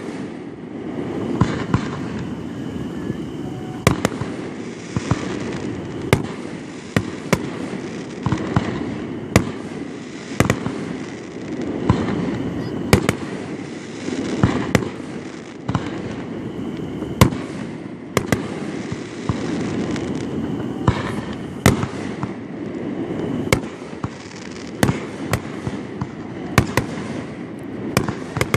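Aerial fireworks shells bursting one after another: sharp bangs at irregular intervals, sometimes several within a second, over a continuous low rumble.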